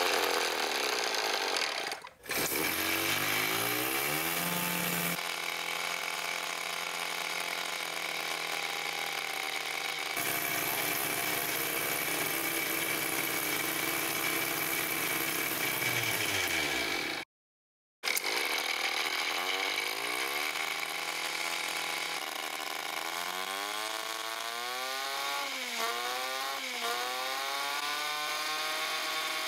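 Small see-through Wankel rotary engine running at high speed with a buzzing whine. Its pitch climbs as it spins up early on and rises and falls with the revs near the end. The track is edited, with cuts and a brief dropout about two-thirds of the way through.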